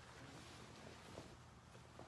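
Near silence: faint, irregular rustling of cotton fabric being handled, over a low steady room hum.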